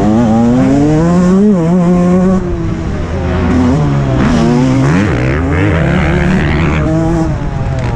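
Close-up sound of a TM 125 MX two-stroke motocross engine under hard riding. Its pitch climbs and drops several times as the throttle is opened and rolled off through the gears.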